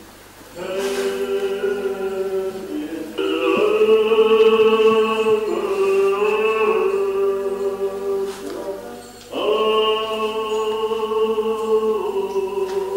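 Choral singing: several voices hold long sustained chords, with new chords entering about half a second in, about three seconds in and about nine seconds in.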